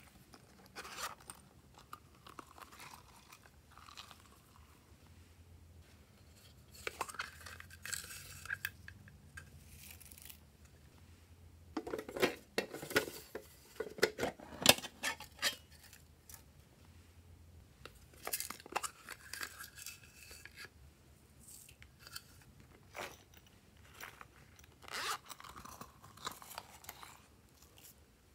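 Hands handling small plastic toy cases and sprinkling sequins and confetti onto slime: scattered clicks, rattles and rustles. The loudest cluster comes about halfway through, as a plastic case is opened.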